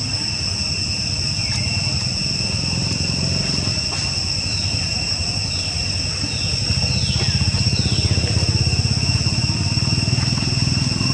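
An engine running steadily, louder from about two-thirds of the way in, over a steady high insect drone. A few short, falling chirps come in the middle.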